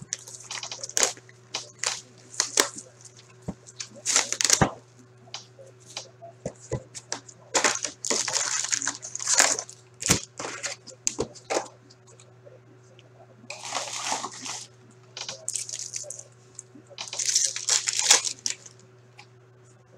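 Hockey card box opened and its wrapped packs handled and torn open: a run of crinkles, taps and crackles, with longer rustling tears near the end.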